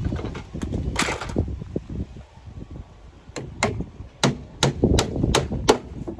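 A brief clatter about a second in, then seven sharp knocks on wood at about two to three a second in the second half, as when assembling a small wooden piece.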